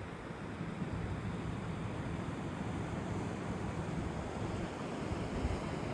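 Steady wind noise buffeting the microphone, a low unsteady rumble under a broad hiss.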